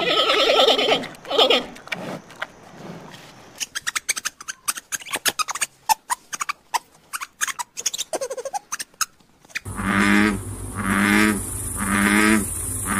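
A run of animal sounds. It opens with two loud, raspy calls, then several seconds of rapid small clicks and short chirps. From about ten seconds in, a frog croaks over and over, about once a second.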